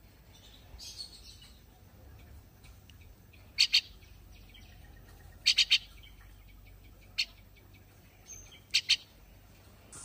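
Fledgling mynas giving short, sharp begging calls in quick clusters of one to three, with pauses between.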